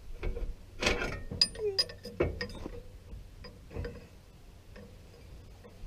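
Hand tool clinking and clanking on the metal pin mount of a loader's hydraulic lift cylinder. A cluster of sharp metal clanks, some ringing briefly, comes in the first three seconds, followed by a few lighter clicks.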